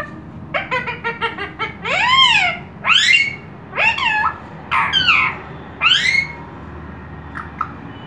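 Indian ringneck parrot calling: a quick run of short chirps, then five loud calls, each rising then falling in pitch, about a second apart.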